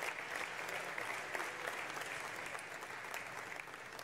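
Audience applauding, a steady clapping of many hands that slowly fades toward the end.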